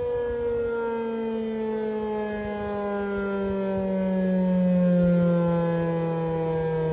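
American Signal T-135 outdoor warning siren sounding during its monthly test, its tone winding slowly down in pitch. It grows louder about five seconds in, then eases off a little.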